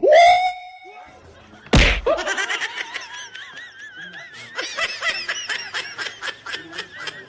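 People laughing in quick pulsing bursts, after a short cry at the start and a sudden loud bang about two seconds in.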